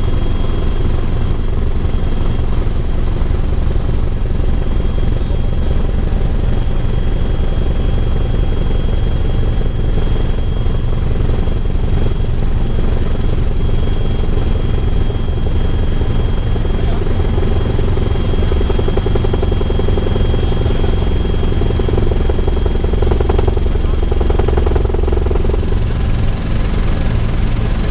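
Bell 412 twin-turbine helicopter heard from inside the cabin in flight: a steady drone of rotor and engines, with thin high-pitched whines running over it.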